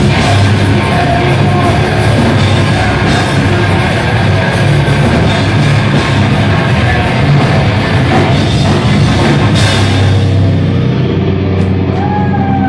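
Hardcore metal band playing live and loud: distorted electric guitars, bass, drum kit and vocals. Near the end the drums and cymbals stop, leaving guitar and bass notes ringing out as the song finishes.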